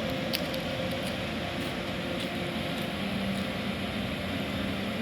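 ÖBB Taurus (Siemens ES64U2) electric locomotive running as it sets off, a steady hum from its traction equipment setting in about three seconds in over the running noise.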